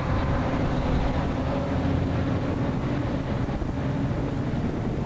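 Several racing car engines running at low speed in a steady rumble as the cars creep forward onto the starting grid.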